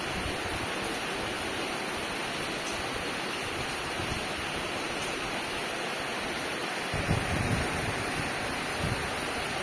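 Steady rain falling, an even hiss with no let-up. About seven seconds in and again near the end, low gusts buffet the microphone.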